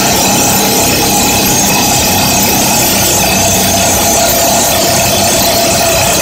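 Excavator-mounted hydraulic rock drill, the FINE Breaker EX-Drill 300, driving its drill rod into rock, a loud, steady, very rapid hammering with no letup.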